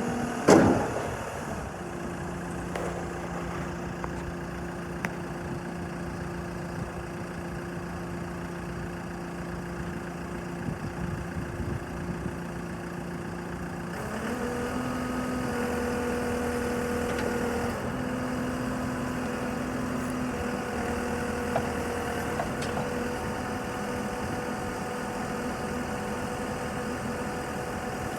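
JCB 3CX backhoe loader's diesel engine running steadily, with a sharp loud clunk about half a second in. About halfway through, the engine speed steps up and holds steady at the higher pitch.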